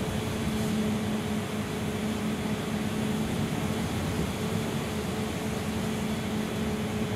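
Cabin noise of a Gillig low-floor city bus under way: a steady engine and drivetrain hum over even road noise.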